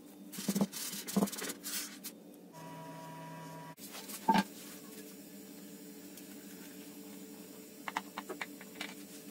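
Plastic bag rustling and crinkling as cake batter is squeezed and scraped out of it into a pan, with two soft thumps in the first two seconds. Then a brief steady hum, a single sharp knock about four seconds in, and a few quick light clicks of a knife cutting the baked cake near the end.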